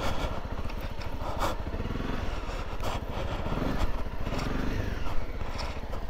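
Honda CRF250 Rally's single-cylinder four-stroke engine running steadily at low speed while the motorcycle is ridden over a rocky dirt track, with a few brief knocks along the way.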